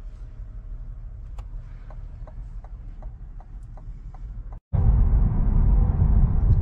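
Quiet cabin of a 2021 Cadillac CT4 Sport at a standstill, its 2.0-litre turbo engine shut off by auto stop: a low hum with a light, even ticking about three times a second. After a short break in the sound about two-thirds of the way in, the car is under way and a much louder low rumble of engine and road noise takes over.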